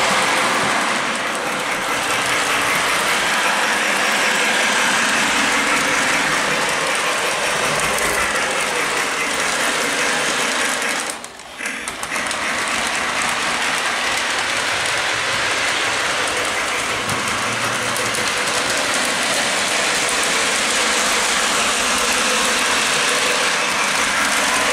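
Model steam locomotive and train running on the layout track: a steady mechanical whir and clatter of the motor, gears and wheels on the rails. The sound drops out briefly about eleven seconds in.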